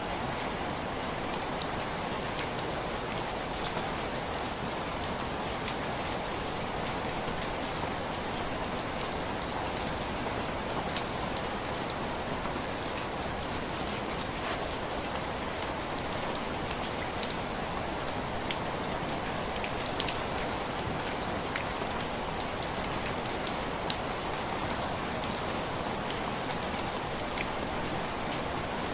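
Steady rain against window glass: an even hiss with scattered individual drops tapping, a few of them louder, about 15, 20 and 24 seconds in.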